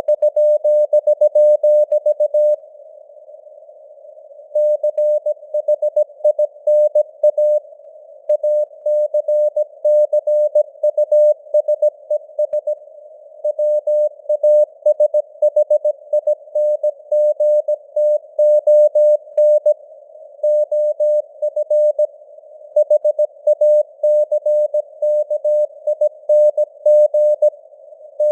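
Morse code (CW) sent at 17 words per minute: a single mid-pitched tone keyed on and off in dots and dashes, over a hiss of simulated radio noise, its strength varying as in radio fading (QSB). The keying breaks off several times for pauses of one to two seconds.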